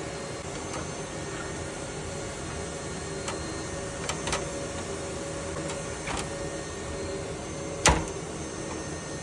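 Scattered clicks and taps of server hardware being handled, with one sharp knock about eight seconds in, over a steady machine hum.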